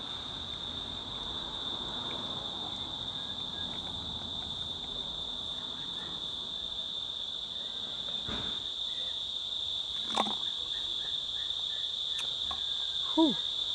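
Steady, high-pitched insect chorus of crickets shrilling, with a couple of short clicks and a brief falling squeak near the end.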